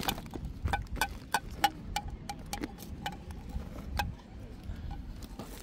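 Cutlery clinking against dishes: light, irregular clinks a few times a second, each with a brief ring, over a low wind rumble on the microphone.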